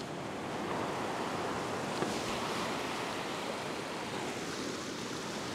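Ocean surf washing over a rock platform: a steady rush of breaking water, swelling a little about a second in and easing off toward the end.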